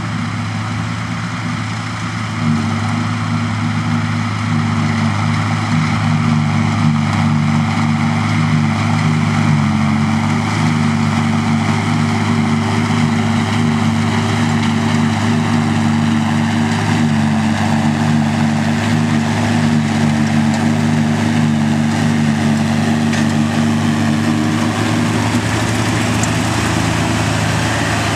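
Farm tractor diesel engine running steadily, getting louder about two and a half seconds in.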